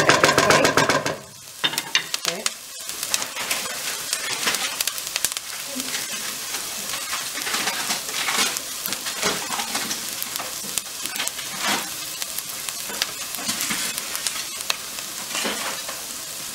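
Diced onions sizzling and crackling in oil in a nonstick frying pan, with a wooden spoon stirring them in the first second. The onions are sautéing and nearly translucent.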